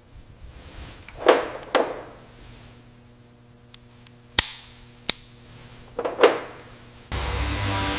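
A series of sharp knocks and clicks, like tools striking metal parts during assembly: two about a second in, two sharper clicks near the middle, and two more about six seconds in. Background music starts about a second before the end.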